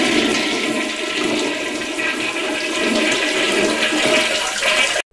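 A rushing, swirling water sound like a toilet flush, played as a sound effect over a title card. It cuts off abruptly near the end.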